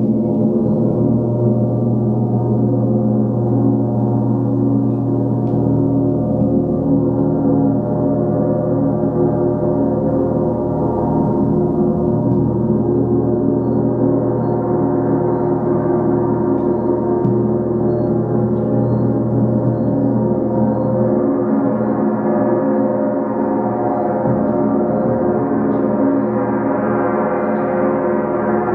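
A 39-inch KI gong sounded with a soft fleece-headed mallet, ringing in a dense, sustained wash of many steady tones with a deep hum underneath. Its upper overtones grow brighter about halfway through and again in the last third.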